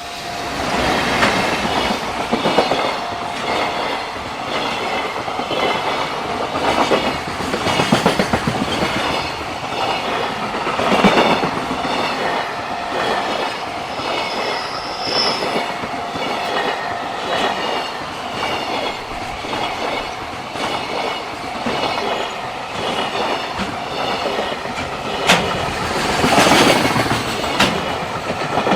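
JR Freight freight train passing close by, its wagon wheels clattering over rail joints in a steady, even rhythm. A brief high wheel squeal comes about halfway through.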